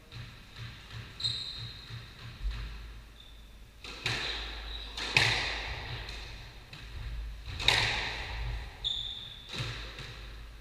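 Squash rally: the ball struck by rackets and hitting the court walls, four sharp echoing cracks a second or two apart in the second half, with shoe squeaks on the wooden floor. Soft thuds come before the first hit.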